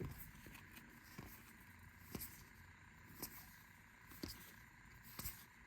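Faint soft clicks about once a second as baseball cards are flipped through one at a time, over quiet room tone.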